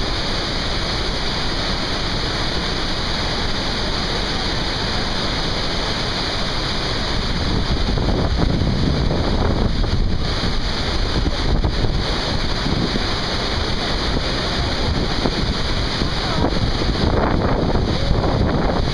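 Steady rush of Iguazu Falls at the Devil's Throat, a huge volume of water plunging into the misty gorge, growing a little louder about halfway through. Wind noise on the microphone mixes with the rush.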